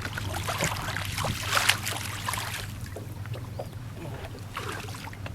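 On a fishing boat, a steady low hum runs under scattered water splashes and light knocks; the loudest splashing comes about a second and a half in.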